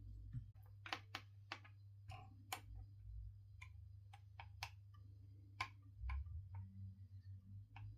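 Irregular light taps and clicks as a carbon-fibre RC car chassis part is rocked against a flat surface. The ticking is the sign that the part has a twist in it.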